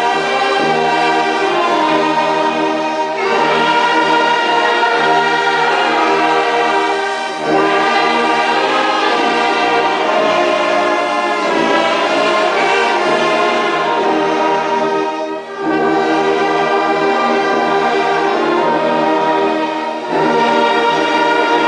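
Church orchestra of brass and strings, trombone among them, playing a hymn in sustained chords, phrase by phrase with short breaks between phrases.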